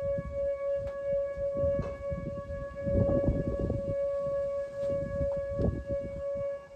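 Outdoor tornado warning siren sounding one steady, held tone, with gusts of wind rumbling on the microphone.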